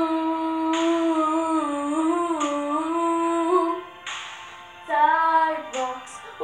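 A girl singing solo, holding one long wordless note whose pitch wavers a little for nearly four seconds. After a brief quieter gap she sings two short phrases near the end.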